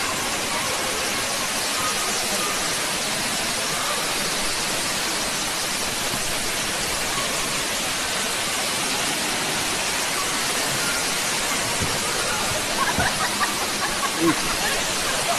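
Steady rushing of a tall indoor waterfall, water pouring in several streams down a plant-covered artificial mountain and splashing below.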